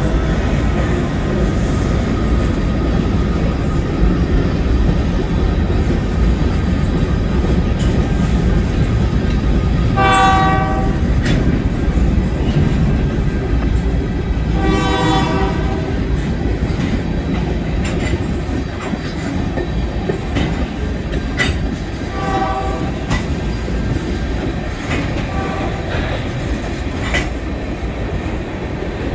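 Canadian National freight train rolling past, with a steady heavy rumble and wheels clicking over rail joints. The locomotive horn sounds chord blasts about ten and fifteen seconds in, then two shorter ones later, as it signals for crossings.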